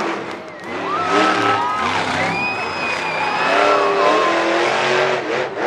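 Monster truck engine revving hard. The pitch climbs about a second in and holds, dips, then climbs higher and holds for a couple of seconds before falling away and wavering near the end.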